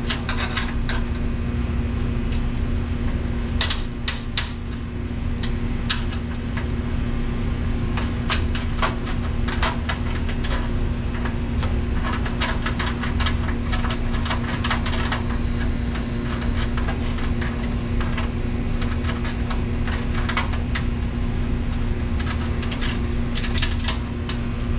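Metal hand-tool clicks and clinks in irregular runs as a 7/16 wrench works the motor mounting bolts loose on a commercial dishwasher, over a steady low hum.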